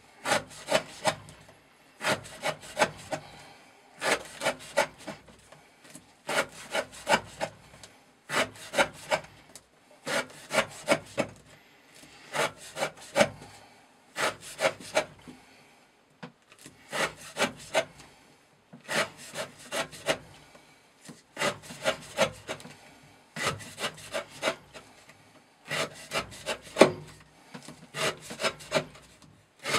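Glock FM 78 knife slicing through natural-fibre rope on a wooden block, about one cut every two seconds, each cut a quick run of crisp crackles as the fibres part under the blade. The cuts are an edge-retention test of a 30° V edge.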